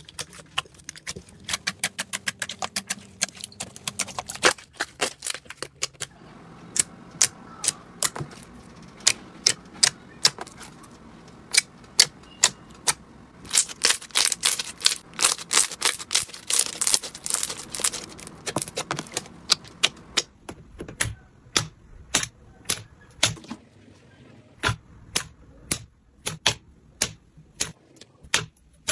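Slime being pressed, kneaded and stretched by hand, making a run of sharp clicking pops. They come thick and fast about halfway through, then thin out to separate pops near the end.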